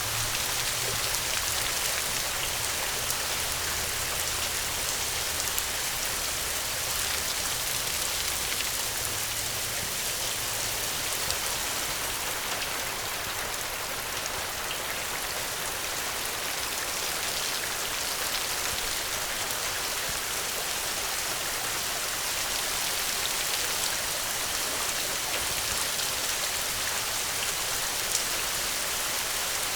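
Steady rainfall: an even, dense hiss of rain with scattered drops ticking on a surface.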